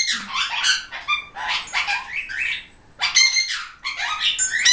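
Several pet parrots squawking and chirping over one another, a loud harsh squawk about three seconds in.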